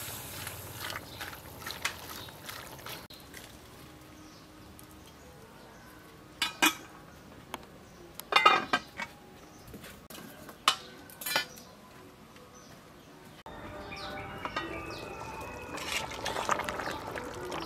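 A metal ladle clinking and scraping against a large aluminium soup pot while stirring, with a handful of sharp clinks a couple of seconds apart and a quick cluster of them in the middle. Near the end the sound steps up suddenly into a fuller stretch of liquid sound from the steaming soup.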